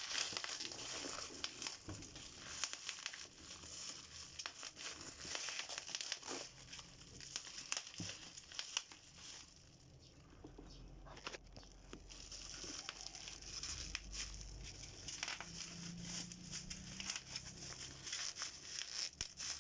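A shoe parcel's packaging being crinkled, rustled and torn open by hand, with many small crackles and clicks; it quietens for a moment about halfway through.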